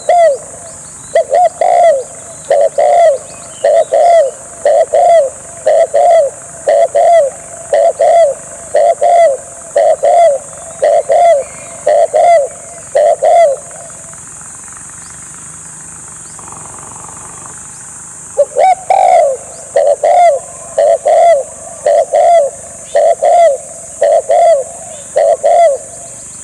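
Spotted dove cooing: a long run of short, low, repeated coo notes about one a second. They pause for about four seconds in the middle, then start again. A steady high-pitched hiss runs underneath.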